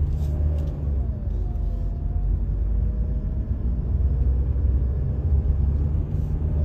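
Small car driving, heard from inside the cabin: a steady low rumble of engine and tyres on the road, with a faint whine that slides gently up and down in pitch.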